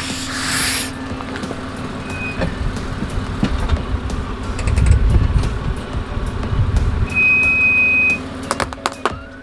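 Car engine running with a steady low hum, swelling into a low rumble about halfway through. A short hiss comes at the start, a steady high beep about seven seconds in, and a few sharp clicks near the end.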